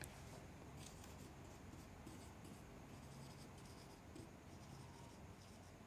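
Faint scratching of a marker being written across a whiteboard in short strokes.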